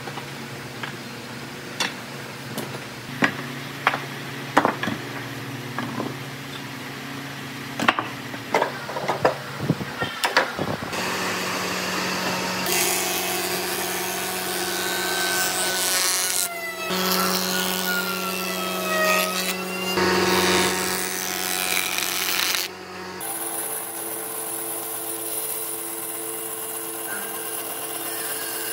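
Wooden boards knocking and clattering as they are handled, a sharp knock every second or so. About eleven seconds in, a jointer takes over, planing a board with a loud steady cutting noise and shifting whines. After a sudden break near the end, a band saw runs steadily.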